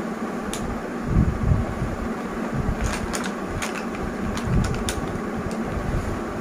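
Light plastic clicks and taps of lipstick tubes and their cases being handled, several in quick succession from about halfway in, with a few soft bumps earlier, over a steady whooshing background noise.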